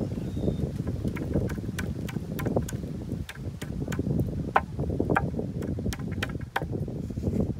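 Low wind noise on the microphone, with a scattered run of sharp, light clicks and ticks as thin wire and netting are handled while a bait bag is tied onto a bintol crab lift net.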